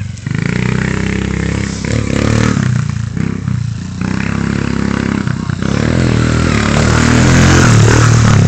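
Pit bike's small single-cylinder engine revving up and down as it is ridden, louder from about six seconds in as it comes close.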